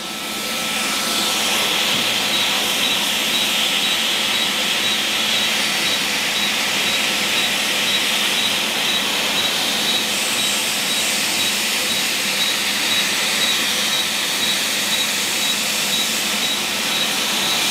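Laser hair-removal machine running during a facial treatment: a steady, loud blowing hiss with a faint thin whine, building up over the first second and then holding even.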